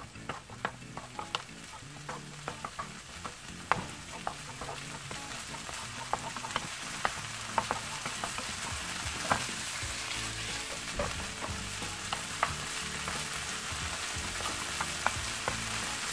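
Ground pork with minced garlic, scallion and chili sizzling in oil in a nonstick frying pan over high heat, stir-fried fast with a wooden spoon that clicks and scrapes against the pan several times a second. The sizzle builds over the first several seconds as the pan heats back up.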